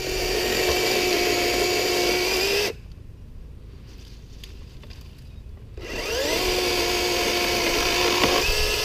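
Electric chainsaw cutting through a fallen tree limb, its motor giving a steady whine. The motor cuts off suddenly about three seconds in, then spins back up with a rising whine about six seconds in and runs steadily again.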